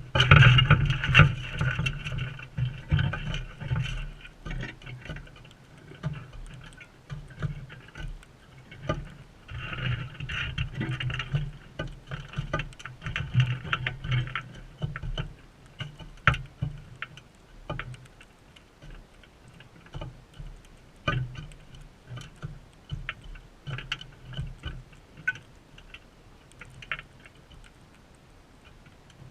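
Birds pecking and scuffling at a seed feeder close to the microphone: irregular sharp taps and clicks throughout, with louder bursts of scuffling at the start and again from about nine to fourteen seconds in.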